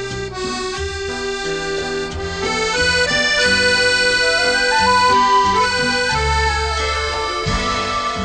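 Instrumental background music of held notes and chords, swelling slightly in the middle.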